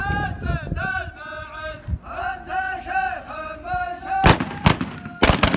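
A line of men chanting together in unison. Then, from about four seconds in, about five sharp, loud shots ring out in quick succession, celebratory gunfire into the air.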